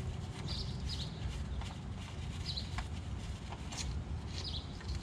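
Short high bird chirps repeating about once a second, over a steady low rumble, with a few faint sharp clicks in between.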